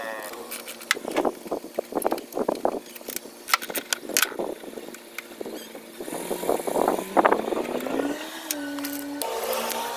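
Socket ratchet clicking in irregular bursts as a bolt in the engine bay is turned. A vehicle engine runs in the background, its pitch rising near the end.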